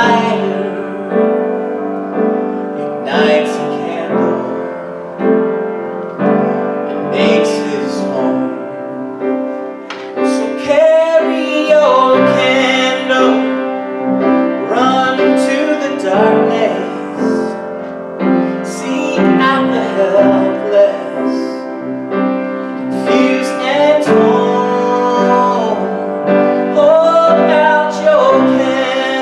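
A solo singer singing a slow sung prayer, with piano accompaniment.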